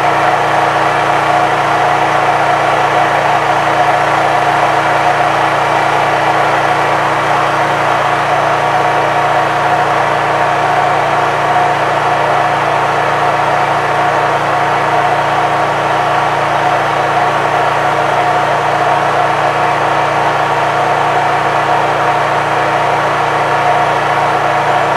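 Honda EU3000is inverter generator's single-cylinder engine running steadily under load from a 1500-watt electric heater, a constant hum with several held tones.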